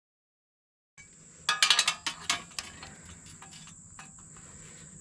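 After about a second of dead silence, a quick run of metallic clanks and clicks as a steel mower blade is handled, then faint light rattling with a steady thin high whine.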